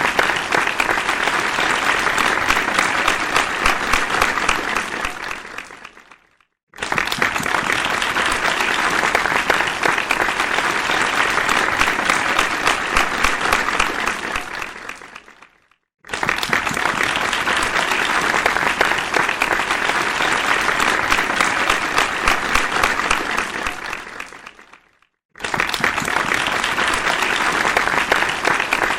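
Crowd applause, many hands clapping densely. The applause fades away, breaks off into a moment of silence and starts again suddenly at full strength, three times over.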